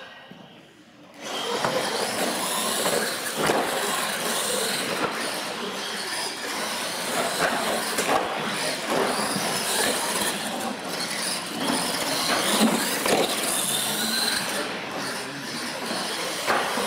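Two radio-controlled monster trucks launching about a second in and racing down a concrete course: a steady rush of motors and tyres, broken by scattered knocks and thumps as they hit ramps.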